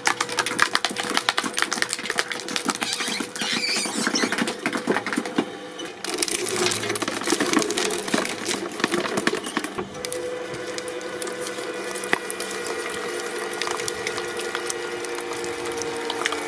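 Hydraulic press crushing an object: dense crackling and snapping, thinning out after about ten seconds, over a steady hum that grows stronger in the second half.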